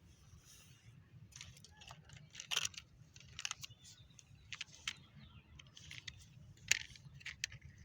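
Irregular light clicks and rattles of small hard objects knocking together, loudest about two and a half seconds in and again near the end, over a steady low hum.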